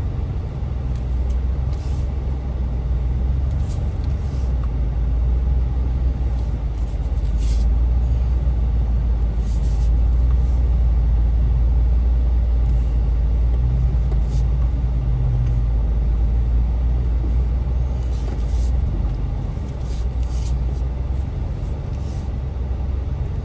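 Off-road Jeep engine running steadily at crawling pace, a deep low drone, with a few short crackles scattered through.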